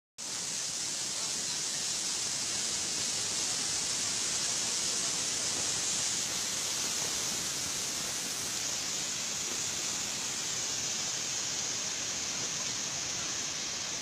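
Waterfall rapids rushing steadily: an even, unbroken hiss of churning white water.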